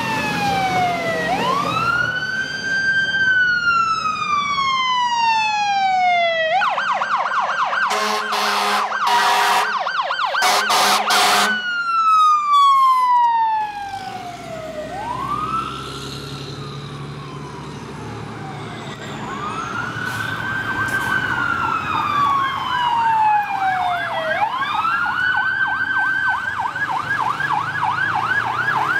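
Fire engine sirens switching between a slow rising-and-falling wail and a fast yelp, with several short horn blasts about a third of the way in. The sirens drop back for a few seconds near the middle, then return loud as another fire engine approaches, alternating wail and yelp again.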